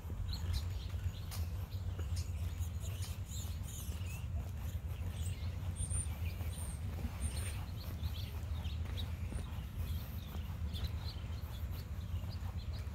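Many small birds chirping and calling in short high notes, with three brief high notes about halfway through. Footsteps on the path tick faintly over a steady low rumble.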